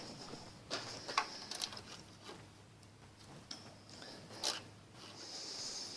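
Faint metal-on-metal scraping and a few light clicks as a steel valve spring is wound onto a split valve guide for a Ford flathead V8, turning its coils into line with the guide's grooves.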